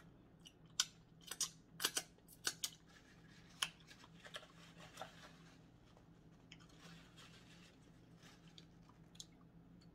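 Close-miked eating sounds: a person chewing crawfish, with a string of sharp wet clicks and lip smacks over the first five seconds, then only faint ticks.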